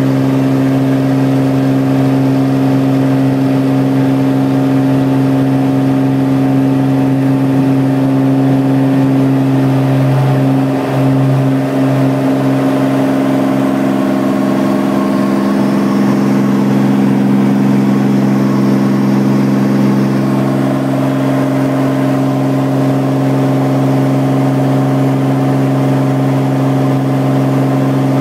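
Cirrus light aircraft's piston engine and propeller at takeoff, heard from inside the cockpit as a loud, steady drone. The tone wavers briefly about ten seconds in, and a second, higher hum joins it for several seconds before settling back.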